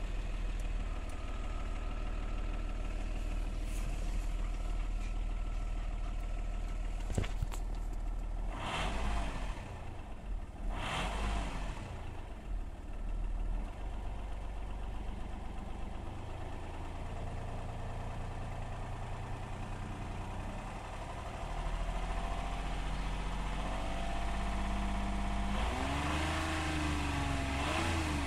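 Car engine idling steadily just after a start, blipped briefly twice about nine and eleven seconds in. Near the end it is held at about 3000 rpm and then drops back toward idle.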